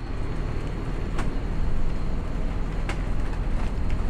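Steady low rumble of a moving vehicle heard from inside its cabin, with two short clicks, one a little over a second in and one about three seconds in.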